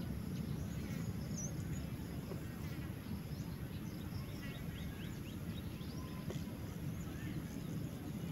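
Outdoor ambience: a steady low rumble of wind on the microphone, with scattered short high chirps from small animals.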